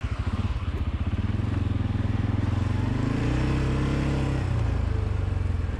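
CF Moto 520L ATV's single-cylinder engine running, with a brief rise in revs a little past halfway that drops back.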